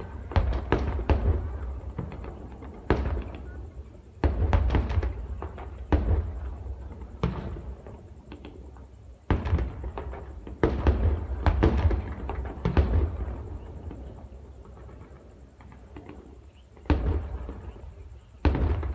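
Distant gunfire and explosions from a military live-fire exercise: irregular blasts every second or two, some in quick clusters, each followed by a long rolling echo.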